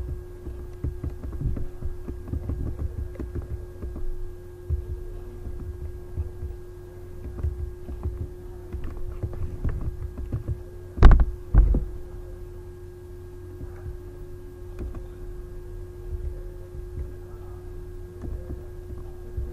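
Computer keyboard typing picked up by the microphone as soft, irregular thuds, with two sharp, loud knocks about eleven seconds in, over a steady hum.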